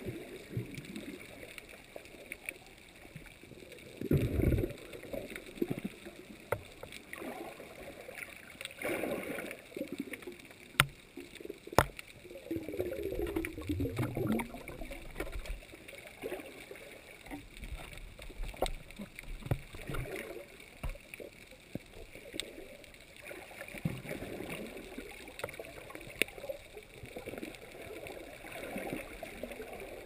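Underwater sound of sea water surging among rocks: irregular gurgling swells, the loudest about four seconds in, and a few sharp clicks a little before halfway.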